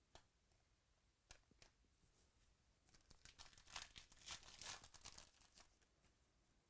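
Faint handling of trading-card packs and cards: a few light clicks, then a burst of crinkling and rustling from about three seconds in, typical of a foil pack wrapper being torn and crumpled.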